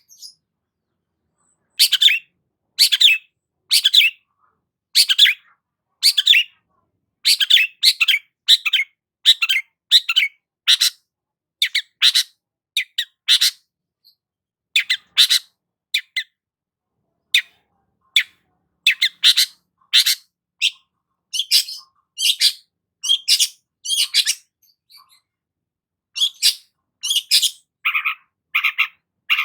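Long-tailed shrike (cendet) giving short, harsh calls over and over, roughly one or two a second, often in quick pairs, with a few short pauses.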